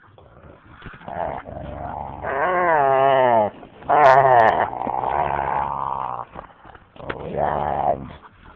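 A husky and a boxer play-fighting, growling and making drawn-out vocal noises whose pitch wavers up and down, in three long bouts: about two seconds in, about four seconds in, and near the end.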